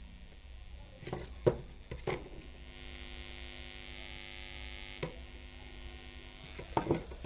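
Steady mains hum and buzz from a speaker driven by a powered 4440 IC amplifier board, with a few sharp clicks around the second second, at five seconds and near the end.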